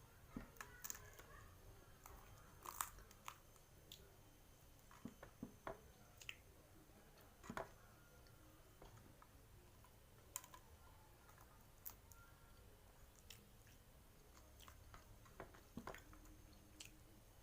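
Quiet, close-up eating sounds: irregular chewing and crunching with small mouth clicks and smacks, from a meal of fried mujair fish and raw papaya leaves.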